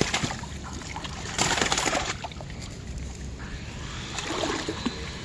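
Shallow, muddy river water sloshing and splashing as arms and hands work through it, with a louder splash about a second and a half in.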